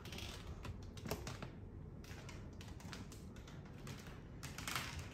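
A scatter of irregular light clicks and taps over a low steady hum.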